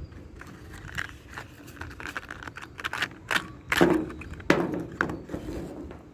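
Handling noise: irregular clicks, taps and rustling of objects being moved about, with two louder knocks a little past halfway.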